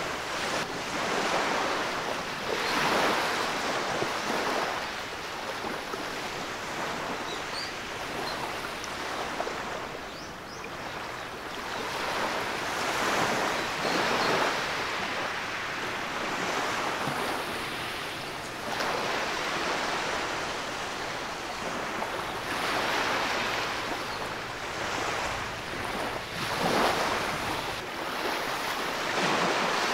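Shallow waves washing up a sandy beach, the foam hissing as each wash runs in and draws back, swelling and fading every few seconds.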